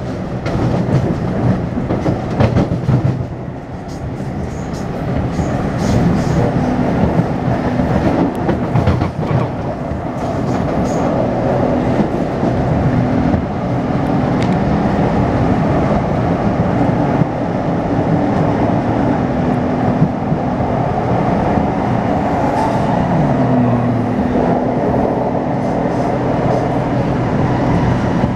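Taipei Metro C301 metro train with retrofitted propulsion running on the line: rumble and wheel clatter, with the traction inverter's steady low whine and a pitch glide about three quarters of the way through. The video's title presents this whine as the inverter's abnormal noise.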